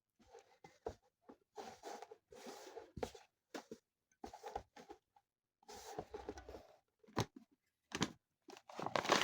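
Intermittent rustling and scraping from ingredients being handled for dough, with a few sharp knocks and a louder burst of rustling near the end.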